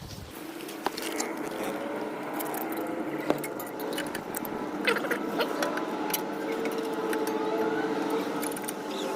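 Scattered sharp metallic clicks and clinks of brake pads and caliper hardware being handled and fitted, over a steady mechanical hum that starts just after the beginning.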